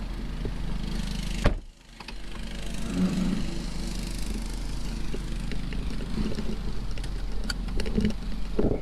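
Vehicle running on the road: a steady engine hum with road noise, broken by a sharp click and a brief dropout about one and a half seconds in.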